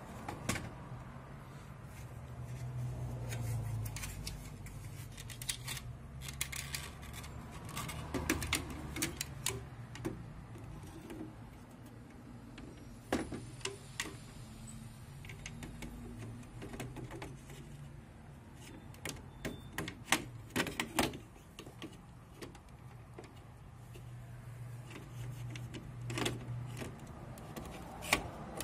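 Irregular clicks and knocks of plastic parts being handled on an opened Epson LQ-2190 dot matrix printer, with a low hum that comes and goes underneath.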